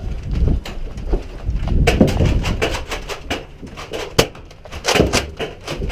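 Scuffling movement at the start of a Nerf round: a low rumble of motion on a head-mounted microphone with a string of irregular sharp clicks and knocks, thickest from about two seconds in, and one stronger knock a little after four seconds.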